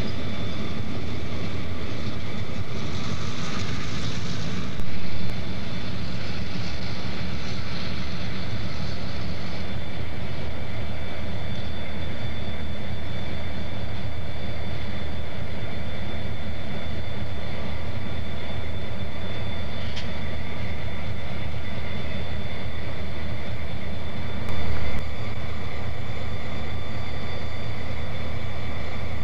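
Steady low rumble of EMD F-unit diesel locomotives running. A hiss rises over it from about three to ten seconds in, and there are two short louder bumps.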